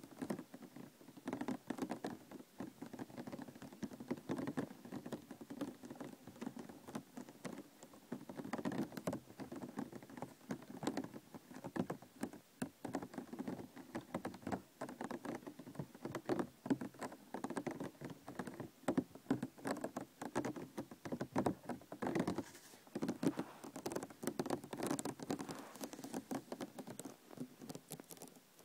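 Plastic container being tapped and handled with the fingers: a continuous, dense run of quick light taps and clicks.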